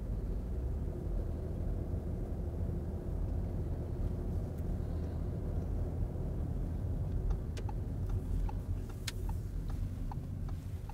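Steady low rumble of tyres and drivetrain heard inside the cabin of an Audi Q7 e-tron plug-in hybrid SUV on the move. From about seven seconds in, light ticks come about twice a second, typical of the turn indicator ticking.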